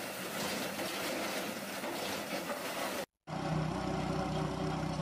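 Tractor-powered firewood processor running, a steady rushing machine noise that cuts off abruptly about three seconds in. A small branch chipper's motor then runs with a steady low hum.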